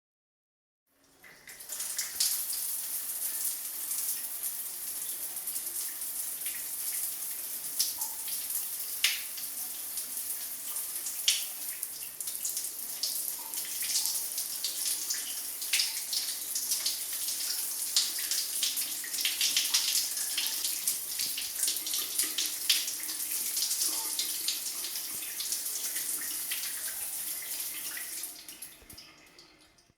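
Shower running: a steady hiss of water spray strongest in the highs, with irregular splashes and drips through it. It fades in about a second in and fades out near the end.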